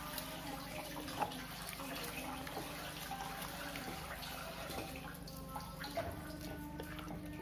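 A plastic spatula stirring a thick, wet batter of blended chicken, soaked bread and egg in a glass bowl: soft wet squelching with small ticks of the spatula on the glass, the sharpest about a second in.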